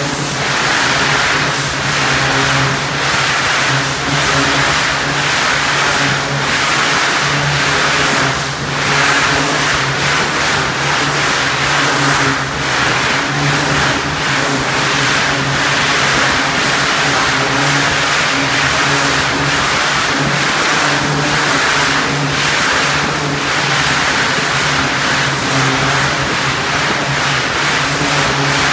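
Pressure washer running steadily, its engine humming under the hiss of the high-pressure water jet spraying the pens.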